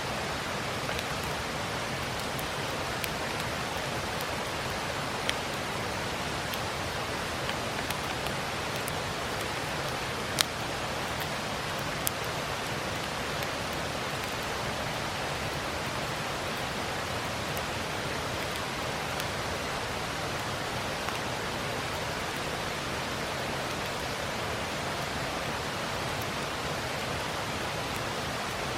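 Steady rushing of a river, with a few sharp pops from a wood campfire, the loudest about ten seconds in.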